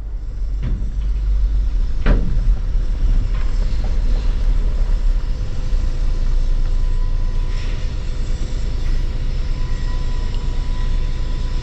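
Vehicle's engine and tyres rumbling, heard from inside the cab as it drives over uneven ground, with two knocks in the first couple of seconds.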